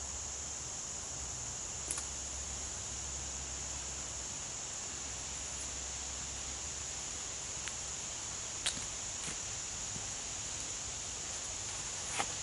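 Steady high-pitched chorus of insects such as crickets, with a few faint clicks.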